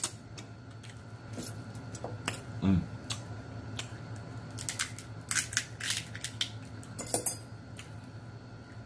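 Snow crab legs being broken and picked at: scattered sharp cracks and clicks of shell, thickest between about five and seven and a half seconds in.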